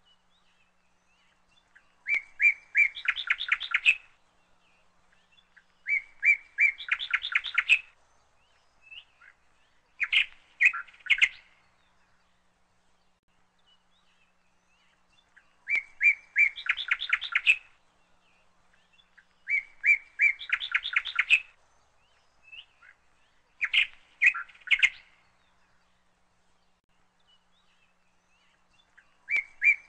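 A songbird singing a repeated song, about seven phrases with pauses between them. Each phrase is a few quick notes running into a rapid trill.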